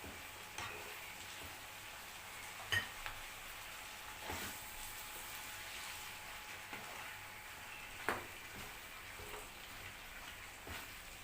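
Green beans, tomatoes and yellow bell peppers sizzling in oil in a pan as they are stirred, with a spoon knocking against the pan now and then, most sharply about three seconds in and again about eight seconds in.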